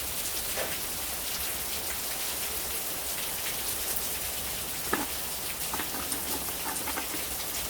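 Steady rain falling, a continuous even hiss, with a few short clicks about five and six seconds in.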